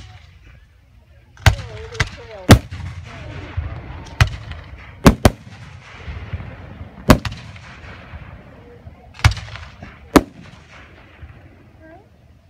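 Aerial firework shells bursting overhead: about ten sharp bangs at uneven intervals of one to two seconds, each followed by a rolling echo.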